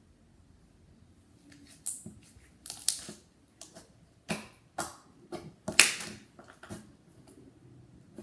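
Slime being squeezed and played with by hand, giving an irregular run of sharp clicks and crackly pops. The loudest pop comes about six seconds in.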